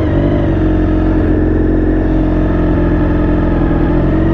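Honda VFR400 NC30's V4 engine running at steady revs, still cold, on freshly cleaned carburettors.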